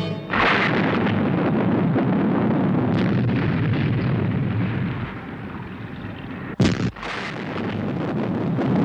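Explosion sound effect: a sudden blast about a quarter second in that rolls on into a long rumble, broken by a second sharp bang about six and a half seconds in. It is the missile strike that blows up the enemy's big underwater cannon.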